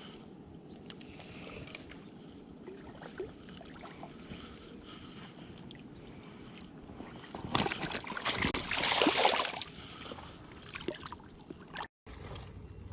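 Water lapping steadily. From about seven and a half to ten seconds in there is a loud stretch of splashing from a hooked walleye being landed.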